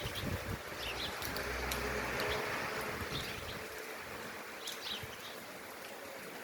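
Wind and rain ambience with scattered short bird chirps. The wind rumbles on the microphone in the first moments, then swells into a hiss about two seconds in and dies down.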